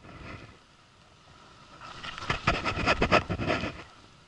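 Baitcasting reel being cranked while playing a hooked red sea bream, giving a rapid rattling, clicking run about two seconds in.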